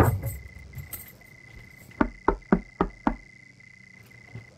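A door thuds shut, then someone knocks on a wooden door five times in quick succession about two seconds in, over a steady chirr of crickets.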